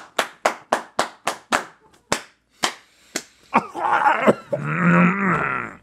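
Hands clapping or slapping sharply in a quick, even run of about four hits a second, slowing to a few spaced hits and stopping about three seconds in. Then a drawn-out wordless vocal sound follows.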